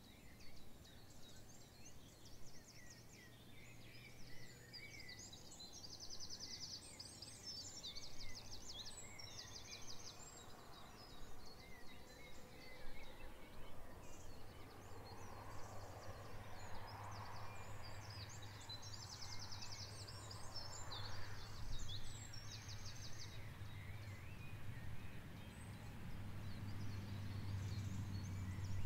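Birdsong ambience: several small birds chirping and calling, with repeated rapid trills. Underneath is a low steady hum that grows louder near the end.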